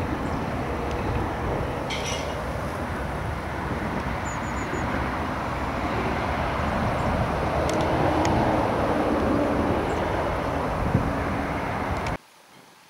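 Steady rumble of road traffic, growing a little louder around eight seconds in, then cutting off abruptly near the end.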